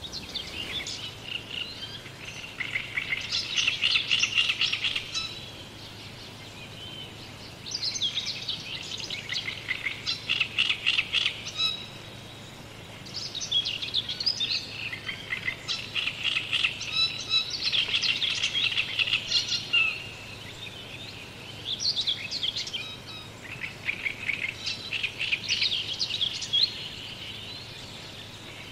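Small birds chirping in repeated bursts of rapid high notes, each a few seconds long, with short pauses between them.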